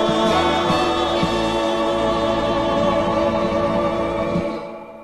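Background song ending on a long held sung note with vibrato over the accompaniment, fading out near the end.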